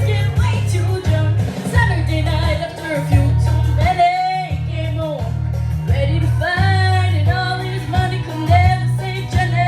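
A young girl singing a country-pop song over instrumental backing with a steady bass line, holding some notes with vibrato.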